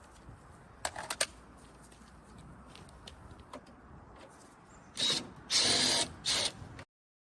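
Cordless mini impact driver with a deep 8 mm socket on a 3/8-drive adapter, run in short bursts: a couple of brief buzzes about a second in, then three longer, louder bursts near the end before the sound cuts off suddenly.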